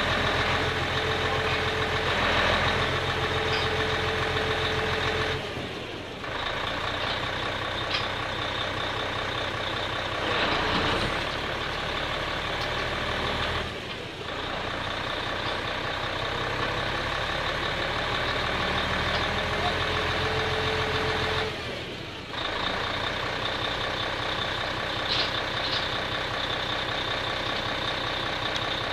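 Heavy machinery running steadily, with a short drop in level about every eight seconds.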